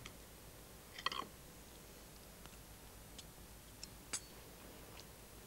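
Faint clicks of a knife and fork against china plates as food is cut, with a small cluster about a second in and one sharper click about four seconds in.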